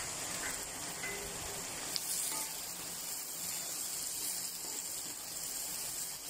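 Chopped garlic, onions and shallots with curry leaves and spices frying in hot oil in a wok: a steady sizzle as a wooden spatula stirs them, with a short tap about two seconds in.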